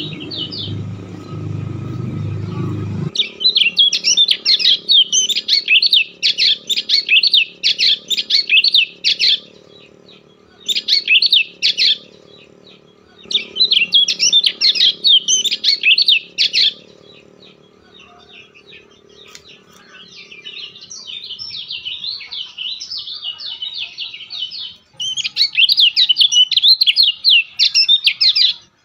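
A small bird chirping in fast, rapid runs of high notes lasting several seconds each, separated by short pauses. A low steady noise underneath stops about three seconds in.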